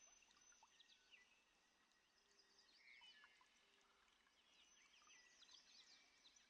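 Faint outdoor chorus of many short, quickly falling animal chirps, with a soft steady background hiss.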